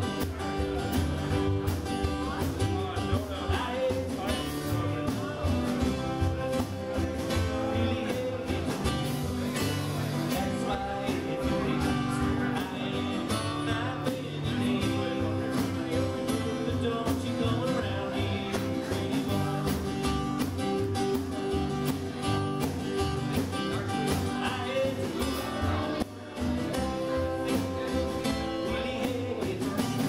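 A live band playing: acoustic guitars strummed over drums keeping a steady beat.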